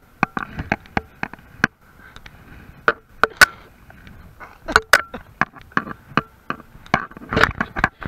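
A string of sharp, irregular clicks and knocks, several a second, with the loudest about three and a half seconds in.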